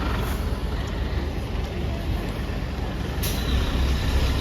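Road traffic on a wet city avenue: a steady low rumble of passing vehicles with tyre hiss. About three seconds in, a sudden sharp hiss.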